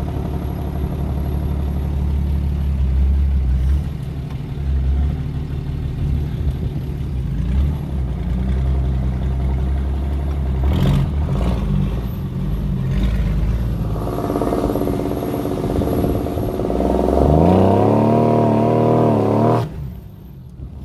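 Nissan Patrol K160's engine running steadily under load, with a few knocks around the middle, then revving up hard about three seconds before the end. The sound cuts off suddenly just after the rev.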